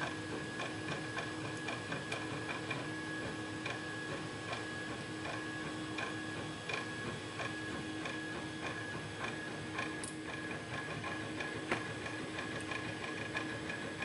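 Small irregular metallic clicks and ticks of tweezers working pins out of a pin-tumbler lock cylinder as it is reverse-gutted, over a steady background hum.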